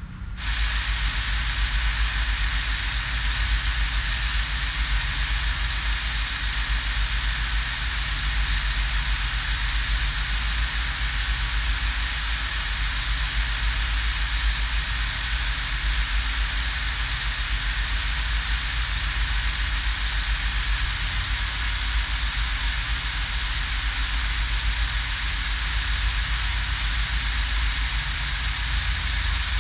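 16mm film projectors switching on about half a second in, then running steadily: a mechanical whir with a deep hum and a fast, even flutter.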